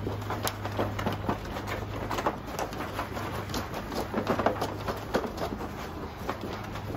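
Dry microfiber towel rubbing over a Chevrolet Silverado's headlight lens in irregular scuffing strokes: the final hand buff that wipes off the last rubbing-compound residue after machine polishing.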